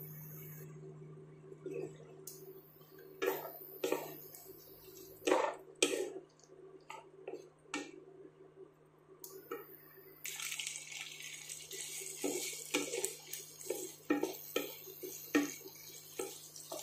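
Wooden spatula stirring and knocking against a nonstick kadai as diced onion and capsicum fry in a little oil, with a steady frying sizzle coming up about ten seconds in.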